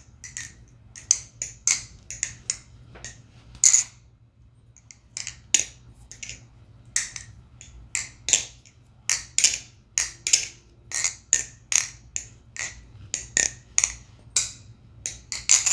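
Balisong (butterfly knife) being flipped: a run of sharp metallic clicks and clacks as the handles and blade tang strike the stop pins and each other, in irregular strings of about two to three a second, with a short break about four seconds in.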